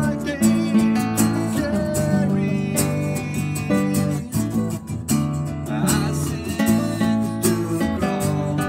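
Two acoustic guitars playing a song together, a nylon-string classical guitar picking a line over a cutaway steel-string acoustic strumming chords, with a man's voice singing along in places.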